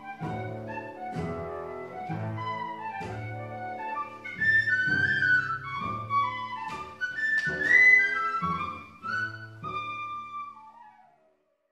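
Small end-blown flute and cello playing an Irish hornpipe: the flute carries a quick melody over steady, evenly spaced low cello notes. The music fades out near the end.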